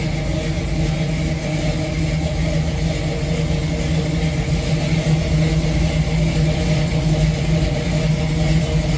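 V8 engine running steadily at low revs, a constant rumble with no revving.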